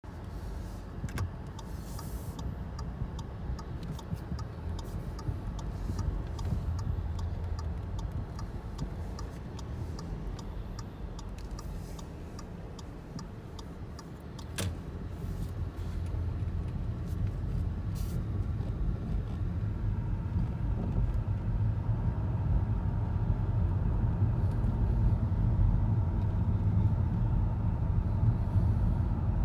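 Audi A3 8V front suspension creaking: short creaks and clicks, many in the first part, over the car's steady low rumble, which grows louder in the second half.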